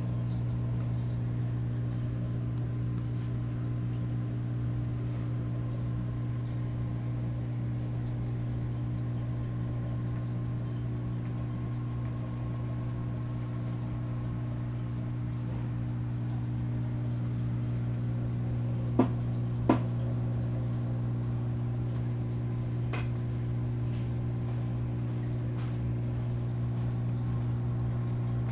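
Steady low electric hum of running saltwater-aquarium equipment, with two sharp clicks close together about two-thirds of the way through.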